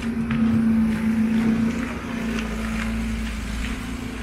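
An engine running with a steady hum and rumble that eases off near the end, with footsteps on packed snow and ice.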